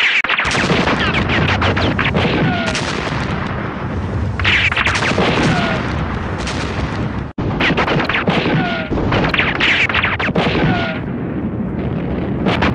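Battle sound effects of continuous gunfire with explosions, dense and unbroken apart from a split-second dropout about seven seconds in.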